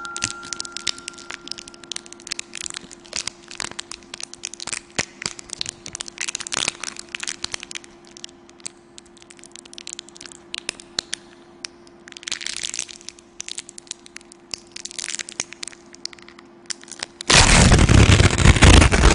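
Irregular crackling and crunching clicks over a steady low hum; about seventeen seconds in, a loud harsh hiss-like noise starts and stays.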